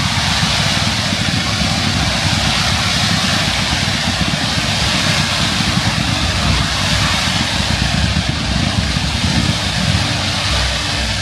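Ground fountain fireworks (gerbs) spraying white sparks, giving a loud, steady hissing rush with a low rumble beneath it.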